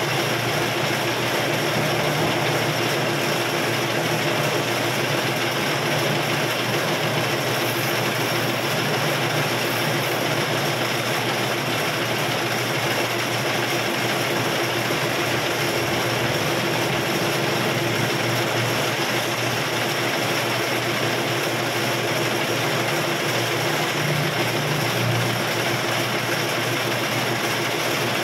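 Metal lathe running steadily while turning a steel workpiece, the cutting tool held against the spinning part: an even machine hum with a constant tone.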